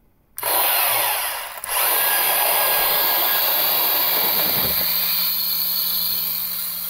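Femobook A68 electric 68 mm conical burr coffee grinder switched on and running. Its rough, steady grinding noise starts about half a second in, dips briefly under two seconds in, then runs on evenly, easing slightly toward the end.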